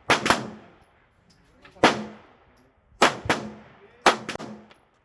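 9mm pistol shots, a new SIG P365 among them: about seven sharp reports, several in quick pairs about a third of a second apart, each with a short ringing tail.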